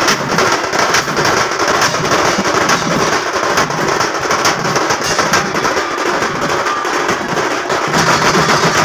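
Loud percussion-heavy music: a dense, continuous run of rapid strikes.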